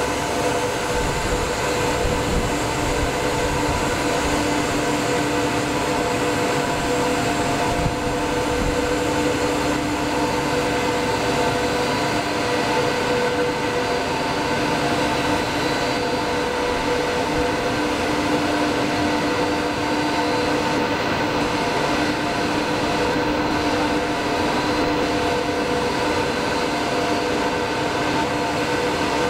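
HXE-17DST intermediate copper wire drawing machine running: a steady mechanical hum with several constant whining tones from its motor and drive.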